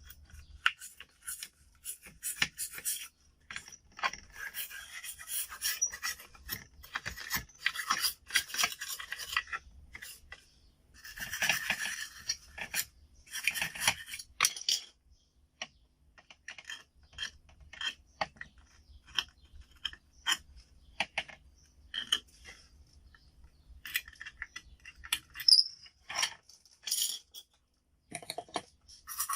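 Scrubbing and scraping on a motherboard to clear oxidation from around the graphics card socket: stretches of rasping, scratchy strokes with short clicks and taps between them.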